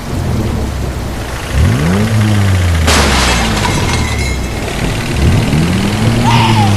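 A low engine running steadily, with a sudden crash-like burst about three seconds in.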